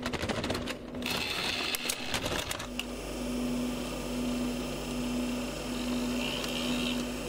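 Videocassette recorder taking in a cassette: a quick run of clicks and a clatter as the tape goes in, then the tape mechanism running with a steady whirr and a pulsing hum.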